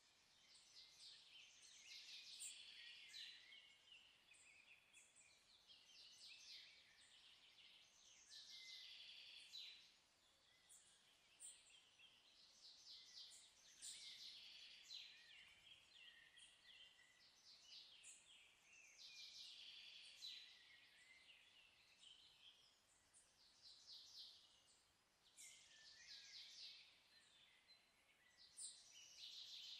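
Faint birdsong: high chirps and rapid trills in short phrases, a few seconds apart.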